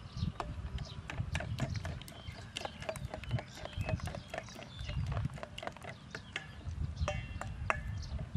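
A metal spoon clicking and scraping against a stainless steel bowl as a mixture is stirred, a quick, irregular run of clicks, with a low rumble underneath.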